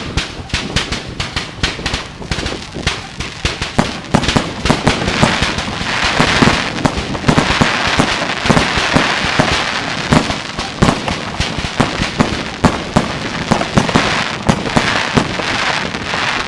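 Fireworks display: a dense, rapid barrage of shell and salute bangs, several a second, thickening after about five seconds into a near-continuous din of overlapping blasts and crackle.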